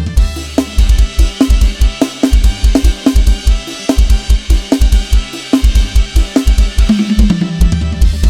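Lam sing dance music driven by an Addictive Drums 2 virtual drum kit: a fast, steady kick-drum beat with snare hits under a constant cymbal wash, and bass notes near the start and again near the end.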